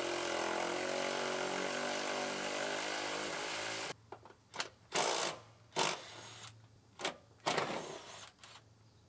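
Power wrench running steadily for about four seconds as it spins out a car door's hinge bolts. After that come several short bursts of the tool.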